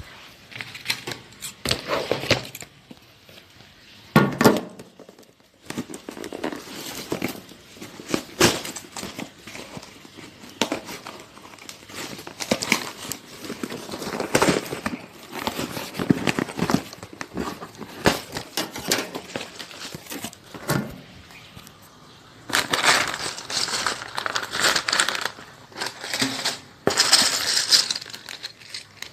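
Irregular crinkling and rustling, like plastic packaging being handled, with small clicks scattered through it. It is busiest and loudest in two stretches near the end.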